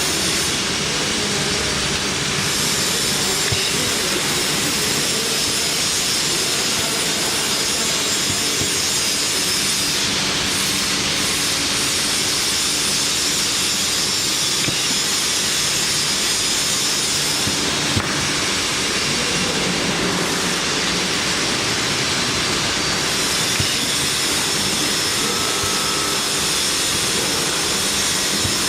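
Steady hiss and hum of factory machinery and ventilation on a touch-panel production floor, with a couple of sharp clicks about two-thirds of the way through.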